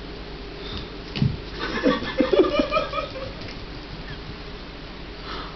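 Puppy giving a run of short vocal noises for about two seconds, starting a little over a second in, while it carries off a piece of chicken.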